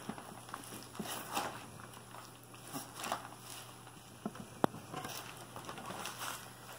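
Soft, irregular rustling and shuffling of nursing Cane Corso puppies shifting about on wood-shaving bedding, with one sharp click about two-thirds of the way through.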